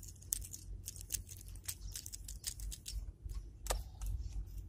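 Irregular light clicks and taps of hands handling a small caught fish and the fishing tackle.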